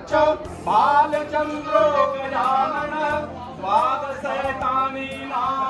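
A song: a high singing voice with sweeping, sliding melodic lines over a steady low musical backing.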